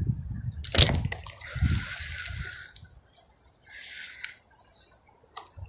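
Creek water splashing and sloshing in several short bursts, a hooked fish thrashing at the surface as it is brought in. A sharp knock about a second in; low wind rumble on the microphone fades in the first second.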